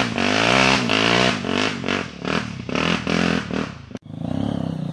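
Single-cylinder four-stroke trail motorcycle climbing a steep dirt slope, its engine revving up and down in quick surges, about three a second. About four seconds in, the sound cuts abruptly to a steadier, lower engine note.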